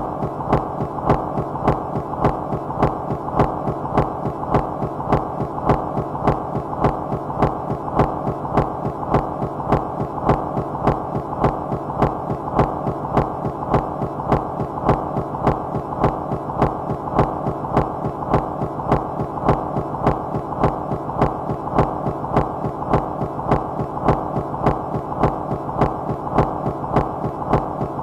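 Minimal micro-industrial noise music: a steady, hypnotic pulse repeating a little faster than once a second over a thick, unchanging bed of hum and noise, with fine ticks laced through it.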